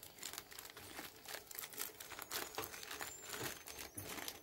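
Thin plastic packet crinkling and crackling as it is squeezed and shaken to pour out powdered chilli mix.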